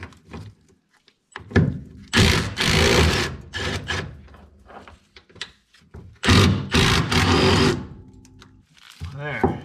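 Milwaukee M18 Fuel cordless impact driver hammering out the two 13 mm bolts of a truck frame bracket, in two bursts. The first starts about a second and a half in and runs over two seconds. The second starts about six seconds in and is shorter.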